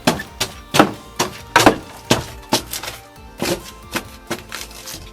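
Repeated sharp knocks, about two a second at irregular spacing, from tools striking the car's body during an interior strip-down, with music playing underneath.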